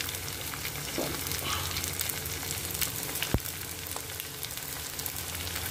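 Samosa rolls deep-frying in hot mustard oil in a kadhai: a steady sizzle full of fine crackles, with one sharp tap about three and a half seconds in.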